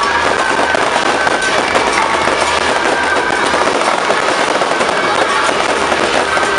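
Strings of firecrackers going off in a continuous rapid crackle, with no break.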